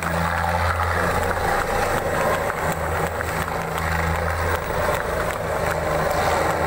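Light helicopter's rotors and engine, a loud, steady low drone, as it spins out of control just above the ground while coming in to land.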